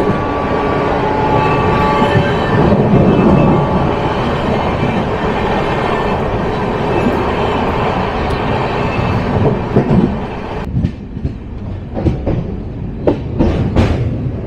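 Passenger express train running along the track, a steady rumble of wheels on rail with a few faint squealing tones in the first few seconds. About ten seconds in the rushing noise drops and separate sharp knocks of the wheels over the rail joints stand out.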